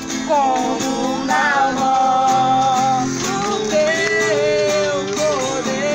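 Christian worship song: a voice singing long held notes with a wavering pitch over strummed acoustic guitar.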